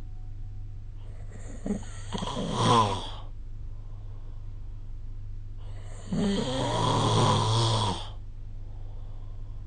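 A sleeping person snoring: two snores about four seconds apart, each lasting a second or two, over a steady low hum.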